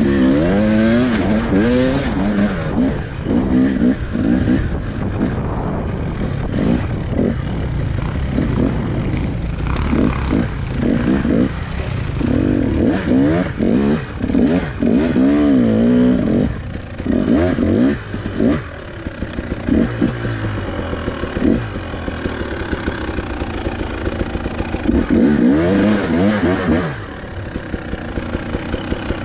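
Dirt bike engine revving up and down over and over under changing throttle while riding a rough trail, with brief drops in revs near the middle and near the end.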